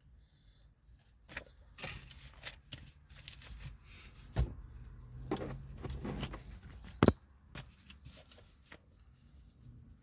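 Small clicks, taps and rustling from objects being handled, with a sharp click about seven seconds in.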